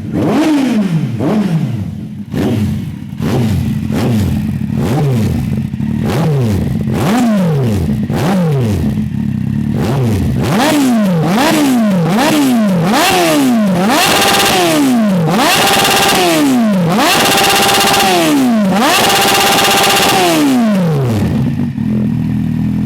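Kawasaki Z800's inline-four engine revved on the stand, the rider's exhaust note ('ronco'): quick throttle blips at first, then from about ten seconds in several longer revs held high for a second or so each, dropping back to idle near the end.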